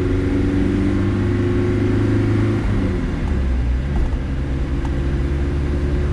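Volkswagen Transporter T4 van's engine running steadily while driving. Its note drops a little under halfway through, then holds steady at the lower pitch.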